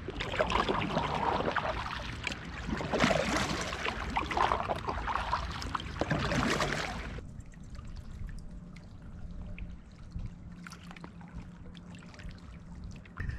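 Kayak paddle strokes: water splashing and trickling off the blades in surges about every second and a half. About seven seconds in it cuts off suddenly to a quieter low rumble.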